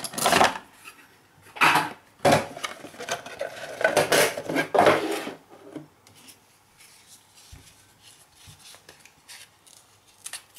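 Cardboard box of 2016-17 Panini Spectra basketball cards being handled and opened: several loud scrapes and knocks of cardboard in the first five seconds, then quieter rustling and small clicks.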